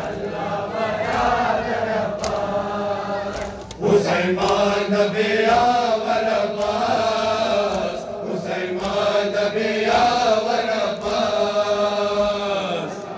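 Men chanting a noha, a Shia Muharram mourning lament, in long melodic lines, with the sharp slaps of hands striking bare chests in matam. There is a short break about four seconds in before the next line starts loudly.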